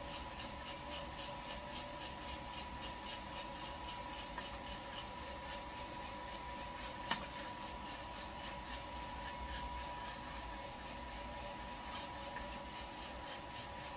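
Kaleido M10 Sniper Pro electric drum coffee roaster running: 300 g of coffee beans tumbling and rasping in the rotating drum with a faint regular pulse about four times a second, over the steady whine of the fan. The beans are in the browning stage, yellow turning to brown, with no cracks yet; one short click about seven seconds in.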